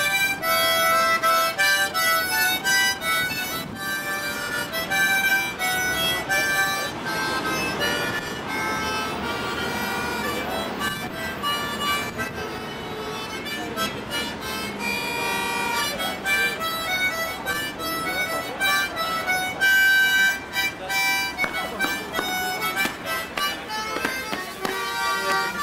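Harmonica played with cupped hands: a tune of quick, changing notes, with a few longer held notes midway.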